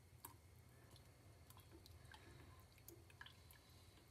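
Near silence, with faint scattered ticks and small liquid sounds from a silicone spatula stirring milk and melting butter in a stainless steel saucepan, over a steady low hum.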